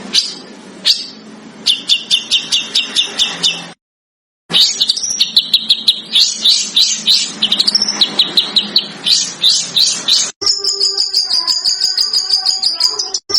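Recorded songbird song: fast runs of sharp, high repeated chirps, several a second, broken off by an abrupt silent gap about 4 seconds in. After a cut about 10 seconds in, a steadier high, rapidly pulsing trill takes over.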